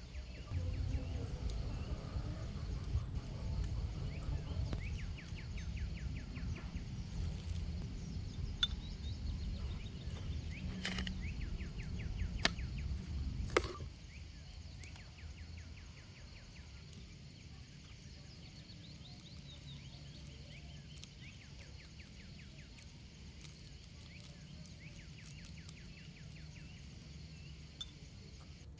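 Steady outdoor insect chorus with faint repeated chirping. For about the first half a low rumble and a few sharp clicks or snaps sit over it, then stop abruptly, leaving only the insects.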